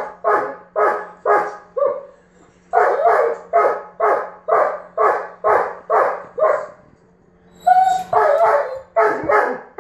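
German Shepherd barking over and over in frustration at its ball stuck under the bed. There are a few quick barks, a short pause, a run of about nine barks at roughly two a second, another brief pause, and then a fast flurry near the end.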